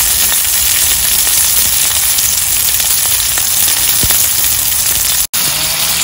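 Wood fire burning in a small B-6 folding grill stove, giving off a steady hiss with fine crackling ticks. The sound breaks off for an instant about five seconds in.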